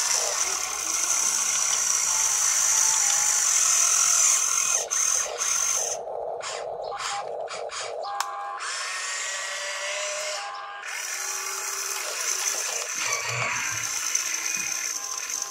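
Electric motors of an RC excavator whining as it digs into dirt and swings its boom. The whine is steady, then cuts on and off in short spurts for a couple of seconds midway as the controls are worked.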